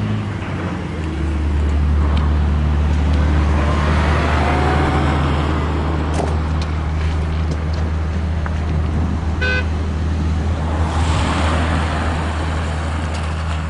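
Steady low hum of a motor vehicle's engine running close by, with road traffic passing twice and a short car horn toot a little past the middle.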